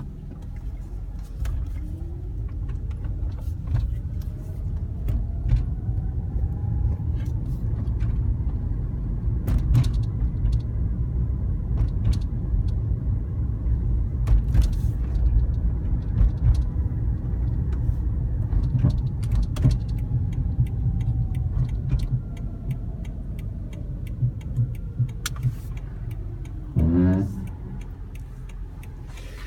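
2010 Toyota Prius on the move: low road and tyre rumble with a faint whine that rises in pitch over the first several seconds and falls again later as the car slows. Near the end, as it slows, a brief loud droning groan sweeps down in pitch: the brake noise.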